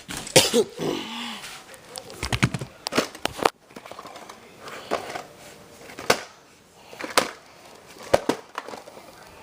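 Plastic clicks and knocks from a VHS cassette and its case being handled, with some rustling early on and a string of sharp taps spread through.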